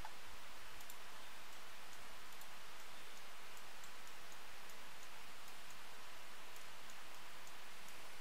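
Steady hiss with faint, irregular ticking from a computer mouse being worked.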